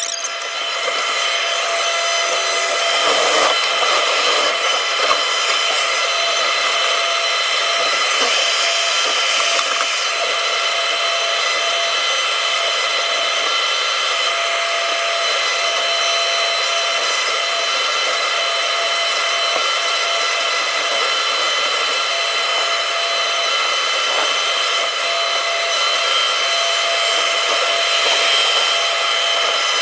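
Takeuchi TB290 excavator running steadily, a continuous whir and hiss with several steady whining tones over it and little deep rumble. A few brief knocks and changes about three to five seconds in.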